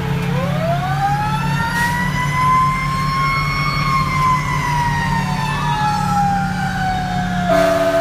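Siren of a 2011 Pierce fire engine heard from inside the cab: one slow rise in pitch over about three seconds, then a long slow fall, over the steady drone of the truck's diesel engine. Near the end the air horn starts, a steady blast of several tones at once.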